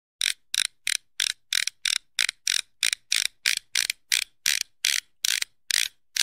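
A rapid run of short, evenly spaced hissing clicks, about three a second for some six seconds, like a ratchet being wound: a mechanical sound effect over the end screen.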